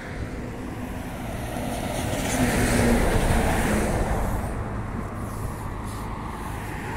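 A car passing on a wet road, its tyre hiss swelling to a peak about three seconds in and then fading away.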